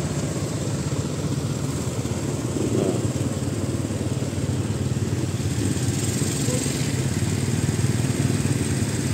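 Truck and motorcycle engines running together in slow traffic, a steady low rumble.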